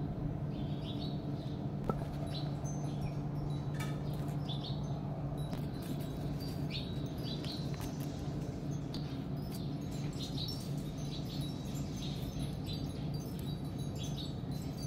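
Small birds chirping repeatedly in short, quick, falling notes over a steady low hum.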